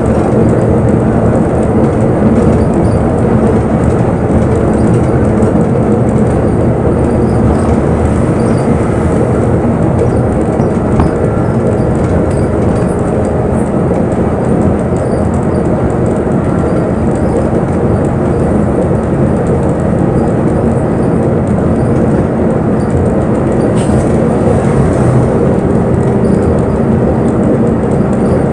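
Bus engine running and the bus moving, heard from inside the passenger cabin: a steady, loud drone with rattles and road noise.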